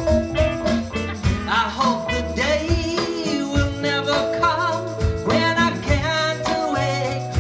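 Live band music: a woman singing lead with a wavering vibrato over electric bass, drum kit and congas.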